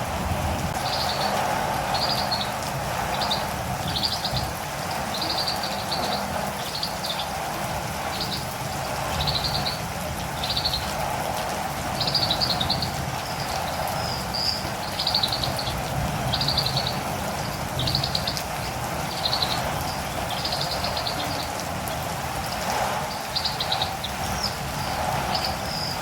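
Catirumbava birds giving short, high chirps over and over, about one or two a second, over a steady hiss of rain.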